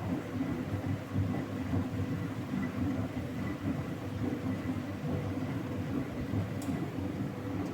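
Vintage Philco L54RX washing machine running its wash cycle: a steady churning rumble of the wash load, with a faint steady motor hum.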